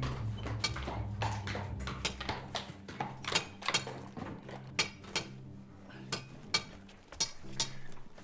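A cart's load of sacks and parcels rattling as it travels, with irregular knocks and clinks over a low steady hum. Music fades out during the first couple of seconds.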